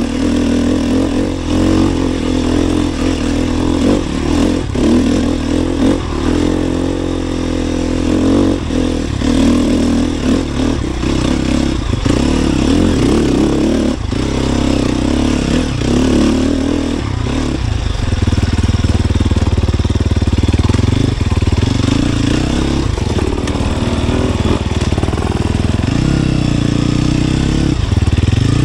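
Sherco 300 SEF four-stroke single-cylinder enduro motorcycle riding trail under constantly changing throttle, engine pitch rising and falling, with scattered sharp knocks from the bike over rough ground. It settles into a steadier, harder pull about two-thirds of the way in.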